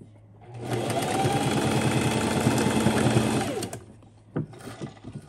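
Singer electric sewing machine stitching at speed for about three seconds, starting about half a second in and winding down to a stop. A single sharp click follows.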